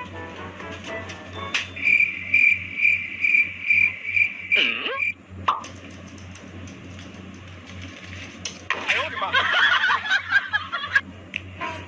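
Cricket chirping: a high, evenly pulsing chirp at one steady pitch that lasts about three seconds, then ends in a quick falling glide. About nine seconds in comes a jumbled two-second burst of higher sound.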